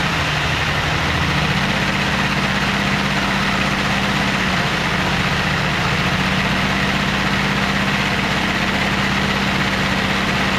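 A vacuum cleaner running steadily, pulling air through a LEGO radial six-cylinder vacuum engine whose plastic pistons and flywheel keep spinning. The steady hum wavers and dips about a second in, then settles.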